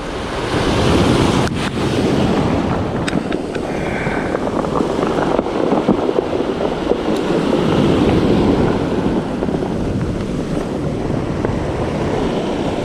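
Surf breaking and washing over a pebble beach, swelling and easing, with wind rumbling on the microphone. A sharp click about a second and a half in.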